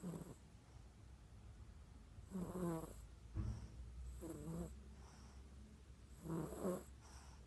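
Snoring: three snores about two seconds apart, each lasting well under a second, with a brief low thump between the first two.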